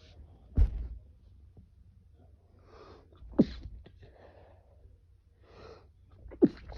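A man's stifled sneezes, induced by Chhinkni sneezing powder: three short, sharp sneezes about three seconds apart, each after a breathy intake of breath.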